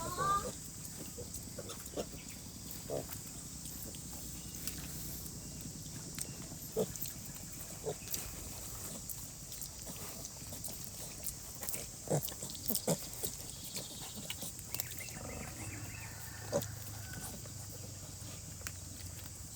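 A sow and her piglets grunting quietly in short, scattered sounds. A brief rising squeal comes right at the start, and a steady hiss runs underneath.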